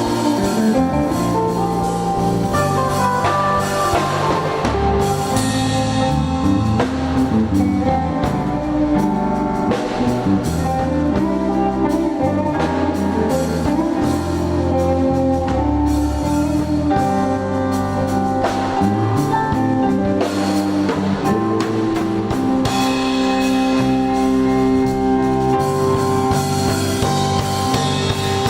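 Instrumental band music with guitar, bass and drum kit playing continuously.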